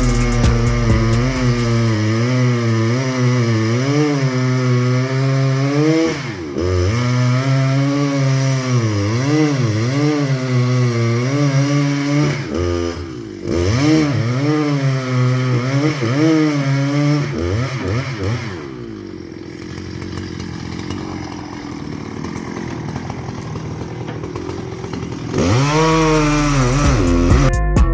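Chainsaw cutting timber, its engine pitch wavering up and down as the chain loads in the cut, with brief dips about six and thirteen seconds in. After about eighteen seconds it winds down and the sound stays much quieter for several seconds, then rises again near the end.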